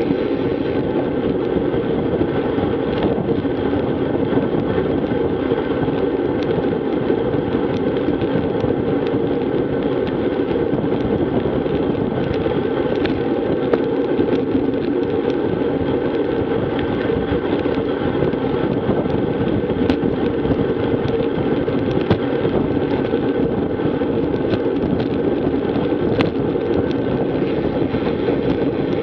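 Steady rush of wind and tyre noise from a road bicycle at about 20 mph, picked up by an action camera on the handlebars. A few faint ticks from bumps in the road are scattered through it.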